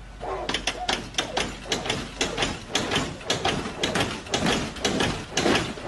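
An old coupe's body and undercarriage knocking and scraping as it rides over something on the road: an irregular clatter of sharp knocks, about three or four a second.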